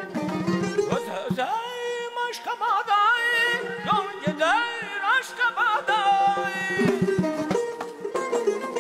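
Azerbaijani mugham played live by a small traditional ensemble: a high melody full of fast trills and bends over lower string notes, with gaval frame drum and naghara strokes that grow denser after about seven seconds.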